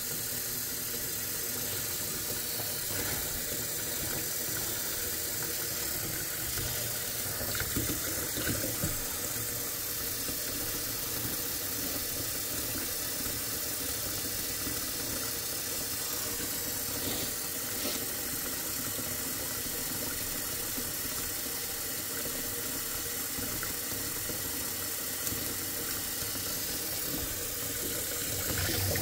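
Kitchen faucet running steadily into the sink, filling it to test whether the freshly snaked drain flows.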